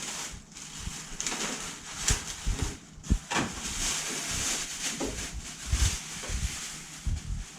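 Packaging rustling and parts being handled while a foam wing is unpacked, with irregular soft knocks and thumps.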